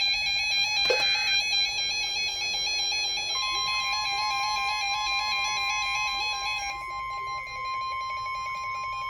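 Emergency alert tones over a radio broadcast: a harsh warbling alert tone, with a sharp click about a second in, joined about three and a half seconds in by the steady single 1050 Hz NOAA Weather Radio warning alarm tone. The warbling fades in the second half while the steady tone runs on. The 1050 Hz tone signals that a warning message is about to follow.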